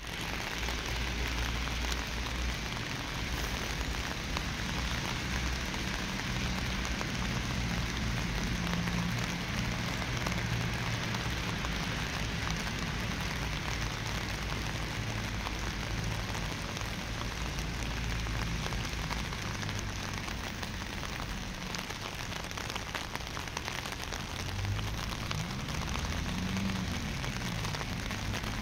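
Steady rain falling, an even hiss of drops, with a low rumble underneath.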